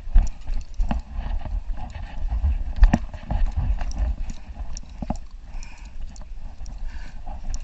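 Irregular footsteps knocking on a concrete seawall, with one louder knock about three seconds in, over a low rumble of wind on the microphone.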